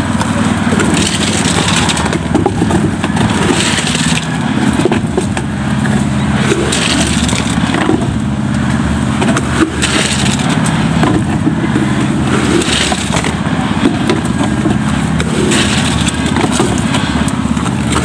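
A small engine running steadily, with scraping and knocks from concrete-filled buckets being handled and passed along.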